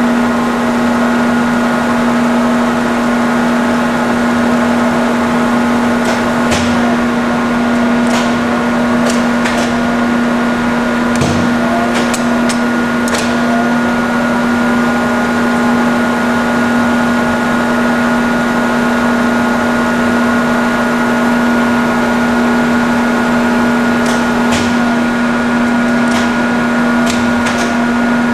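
Cincinnati Milacron 220-8 centerless grinder running its automatic infeed cycle: a steady hum with a thinner, higher steady whine. Scattered sharp clicks and clanks come as the magazine infeed pushes parts in, the slide feeds and retracts, and finished parts drop onto the conveyor.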